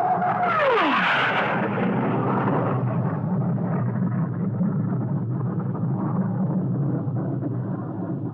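Cartoon explosion sound effect: a whistling tone that slides steeply down in pitch, overtaken by a sudden burst of noise that settles into a long, low rumble.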